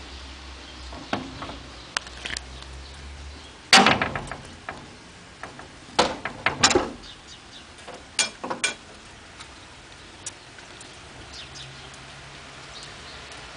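Green-painted wooden louvred window shutters being unlatched and pushed open by hand: a run of knocks and clatters, the loudest about four seconds in, with more around six and eight seconds, over a low steady hum.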